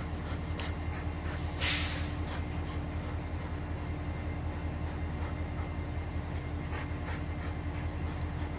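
Train passing, a steady low rumble with faint clicks, and a short hiss about two seconds in.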